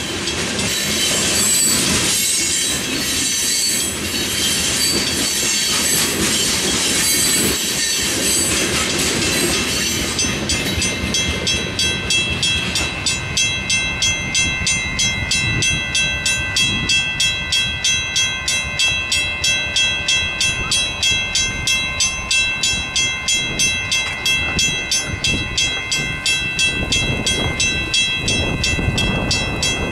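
The last hopper cars of a freight rock train roll through a grade crossing with wheel clatter. About ten seconds in the train is gone, and the crossing bells, a Western Cullen Hayes mechanical bell and an electronic bell, ring on in a fast, even rhythm of about two to three strokes a second while the signals keep flashing.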